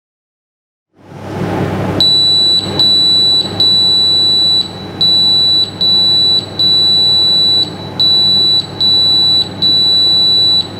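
Breville PolyScience HydroPro Plus sous vide circulator's timer alarm beeping high and steady in a repeating pattern of two short beeps and one long beep, three times over, over a low steady hum: the signal that the 15-minute cook at 85 °C is finished.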